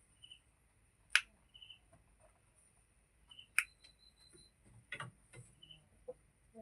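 Small birds chirping, short high chirps repeating about every second and a half, with a few sharp clicks in between and a steady high hiss.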